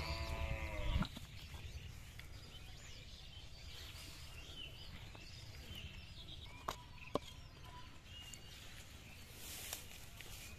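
Quiet outdoor ambience with faint bird chirps. A short pitched call sounds in the first second, and two sharp clicks come about two-thirds of the way through.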